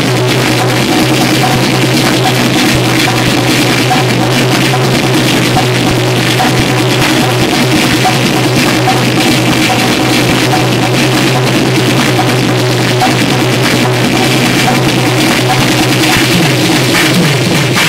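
Loud live electronic music played from hardware: a steady drum-machine beat over a constant low drone, with harsh noise filling the top. About sixteen seconds in, a new wavering synth line comes in under the beat.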